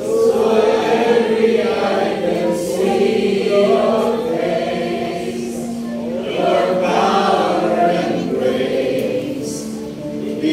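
Live worship song: a congregation and worship singers singing together with a band accompanying, in long held notes.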